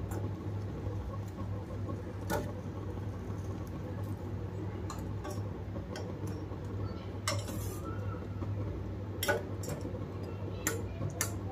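Steel spoon clinking and scraping against a stainless steel saucepan while jalebis are pressed down into sugar syrup: several sharp, separate clinks with one longer scrape about two-thirds of the way through, over a steady low hum.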